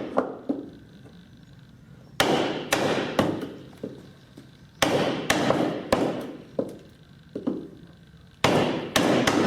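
Chisel being driven into old elm with quick sharp strikes, cutting a small mortise. The strikes come in three short flurries, each starting hard and tapering off.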